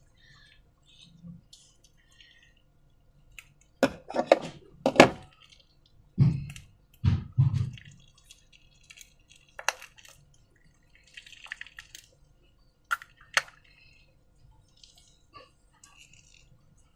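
Slime being worked by hand: scattered wet squelches and sharp clicks, with a cluster of louder clicks followed by deeper squelches in the first half.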